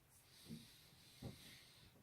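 Two soft pops of spinal joints being cracked by manipulation, about three-quarters of a second apart, the second sharper, over a faint hiss.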